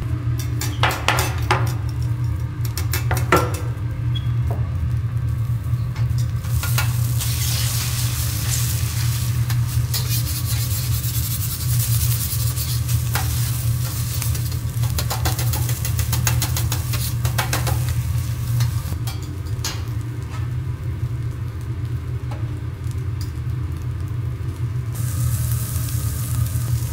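Fried rice sizzling on a teppanyaki steel griddle while metal spatulas scrape across the plate and clack against it now and then. A steady low hum runs underneath.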